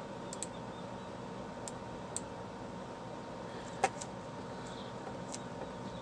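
A few scattered light clicks from working at a computer's mouse and keyboard, one sharper click about four seconds in, over a steady faint room hiss.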